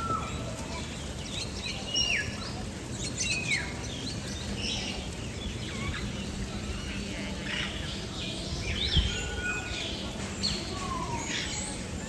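Assorted bird calls: short whistled chirps, several sliding down in pitch, coming every second or two, over a steady low background rumble. A brief low thud about three-quarters of the way through.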